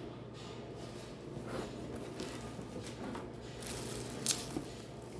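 Handling of a router's plastic wrap and cardboard box insert: light rustling and crinkling, with two sharp clicks about four seconds in.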